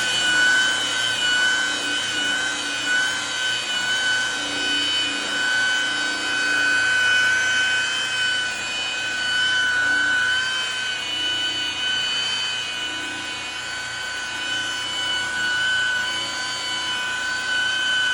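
Makita rotary buffer with a wool pad running at a steady high-pitched whine, cutting an oxidised plastic headlight lens with heavy cutting compound.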